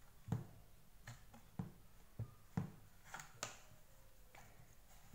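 A scattered series of light clicks and taps from hands handling the plastic floor-brush head of a Deerma VC25 vacuum while pressing its red fabric strip into place.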